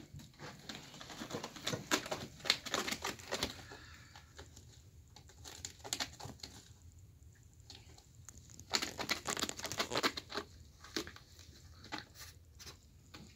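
A cat's claws raking and tearing at frayed rope in two bouts of rapid scratching, one starting about a second in and one about nine seconds in, with a few single scratches between.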